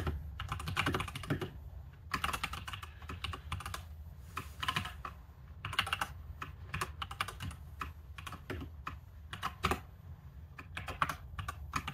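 Typing on a computer keyboard: quick runs of keystroke clicks in short bursts, with brief pauses between them.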